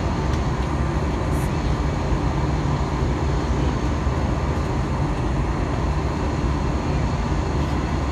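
Steady cabin noise inside an Airbus A321-200 in its climb after takeoff: the even low drone of the jet engines and the rushing of air past the fuselage, unchanging in level.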